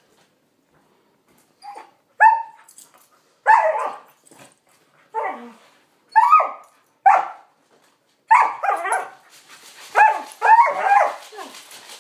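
Dogs play-barking: short high barks and yips, singly about once a second at first, then in quicker runs of several in the last few seconds.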